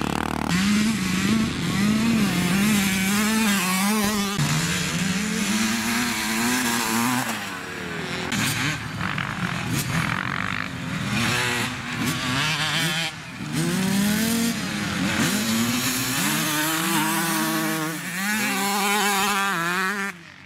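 Dirt bike engines revving hard, pitch rising and falling again and again as the riders go on and off the throttle through the corners of a grass track. The sound cuts abruptly a couple of times.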